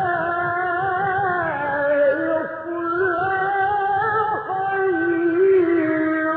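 A male Quran reciter chanting in the melodic mujawwad style, drawing out a phrase in long, ornamented held notes that wind up and down in pitch.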